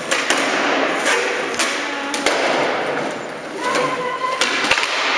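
Skateboard on flat concrete: urethane wheels rolling with a steady rumble, broken by sharp wooden clacks as the tail pops and the board lands, about nine in all, each with a short echo off the hard walls.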